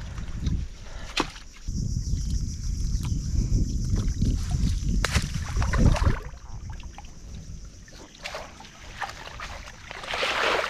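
Shallow muddy water sloshing and splashing as a fishing net and a hand landing net are worked through it, with a few sharp knocks. A low rumble of wind on the microphone is heaviest through the first half.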